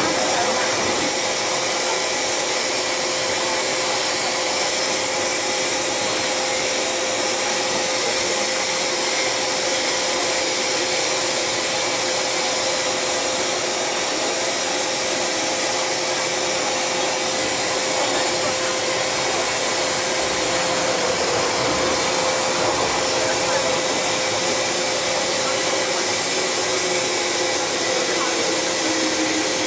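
Loud, steady hiss of compressed air leaking inside an MTR M-Train car, coming from a faulty, out-of-service door: the sign of broken door parts, more than one by the uploader's reckoning. A steady whine runs under it, and a lower tone falls in pitch near the end.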